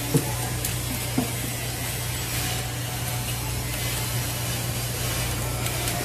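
Steady hiss of running water over a constant low hum, with two short knocks in the first second and a half.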